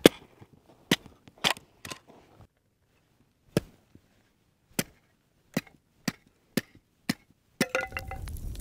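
An old Estwing hatchet chopping a board into kindling: about ten sharp, separate strikes of the steel head into the wood, at uneven spacing. Near the end the chopping gives way to a steady rushing noise.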